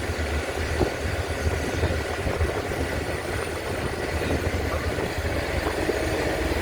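An engine running steadily, a low hum under a constant mechanical noise.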